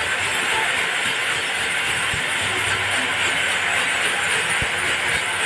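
Band sawmill blade cutting through a large teak log, a steady, even hiss of sawing.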